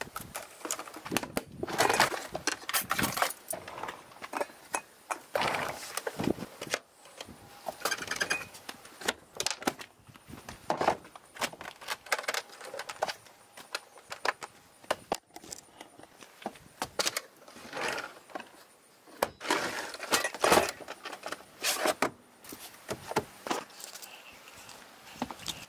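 Irregular knocks, clatter and rustling of household items being handled and set down: plastic food boxes and metal tins put into a plywood kitchen unit on a van's wooden floor.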